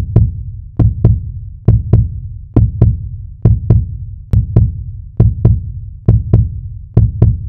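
Heartbeat sound effect: deep double thumps, one pair a little more than once a second, repeating evenly.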